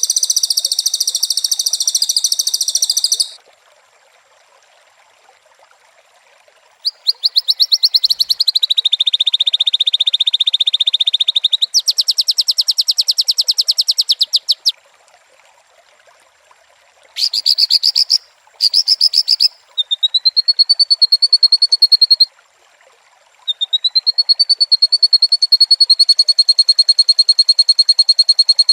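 White-rumped shama (murai batu) singing, loud and high-pitched: a run of very fast trills and rattling phrases, each lasting one to several seconds, with short pauses between them. The song is the kind played to trigger captive shamas into singing.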